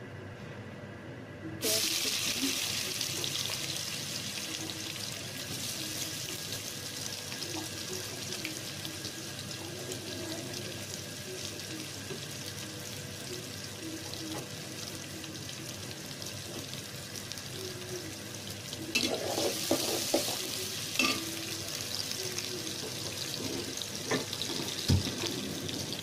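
Sliced onions and green chillies frying in hot oil in a metal pot: a sudden sizzle about two seconds in as they go in, running on steadily. A few clatters of a spatula against the pot come in the last third.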